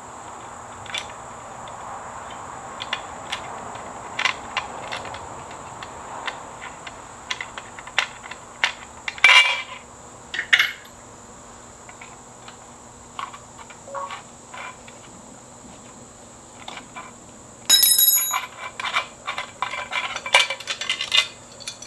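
Hand tools and loose metal parts clicking and clinking while being handled, with a louder run of ringing metal clatter near the end.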